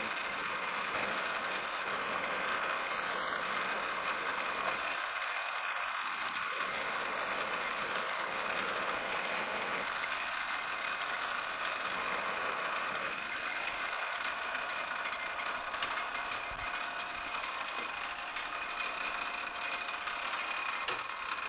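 Metal lathe running steadily while a 1/4-inch pilot drill bit in the tailstock chuck bores into the spinning workpiece.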